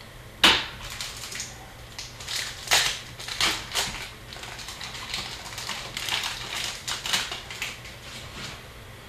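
Upper Deck hockey trading cards being handled by hand: a run of quick swishes and snaps of card stock sliding against each other, the sharpest about half a second in.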